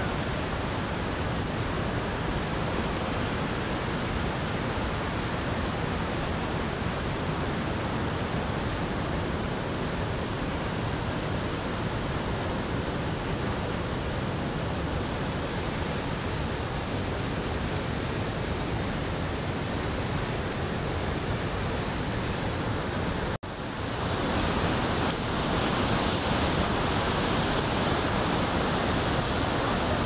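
Steady rush of the Tietê river's rapids and falls, running in flood with rainwater and white with foam. The sound breaks off for an instant about three quarters of the way through and comes back a little louder and hissier.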